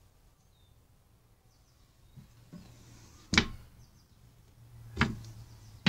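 Two sharp knocks about a second and a half apart, over a faint steady low hum.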